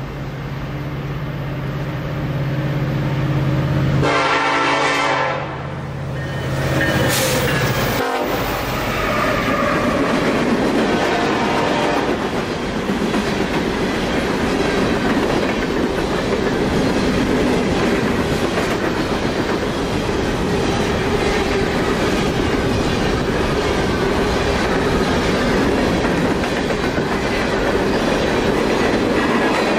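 Coal train's diesel locomotives running past close by, a steady low engine drone, with a horn blast about four seconds in. From about eight seconds the coal hopper cars roll by, a continuous rumble with rhythmic clicking of wheels over the rail joints.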